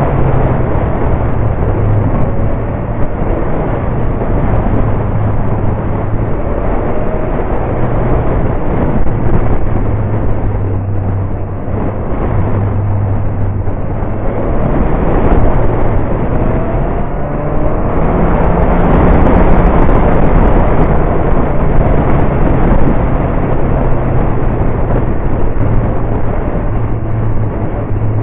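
Motorcycle engine running on a mountain descent, its note rising and falling, under a continuous rush of wind noise on the bike-mounted action camera's microphone.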